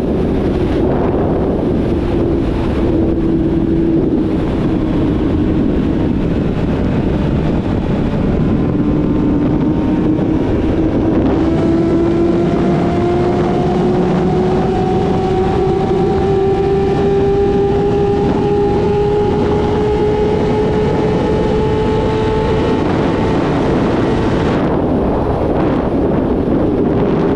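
Yamaha YZF-R6 inline-four sportbike engine with a full exhaust system, running at a steady throttle; its note holds level, then creeps slowly up in pitch for about fifteen seconds from a third of the way in. Heavy wind noise on the microphone runs under it throughout.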